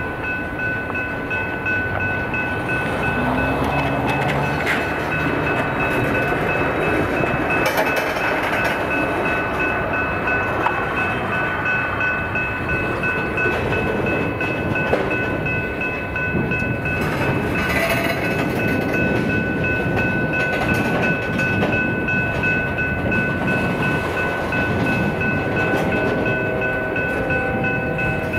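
A train rolling past, wheels running on the rails with a steady rumble, and a high-pitched squeal held throughout.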